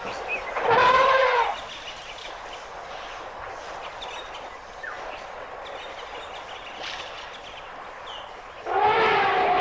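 African elephant trumpeting twice: a short call about a second in, then a longer one near the end, over a steady hiss.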